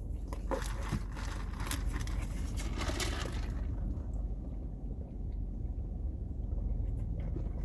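Steady low rumble of a car interior, with crinkling clicks of a paper food box being handled during the first three seconds or so.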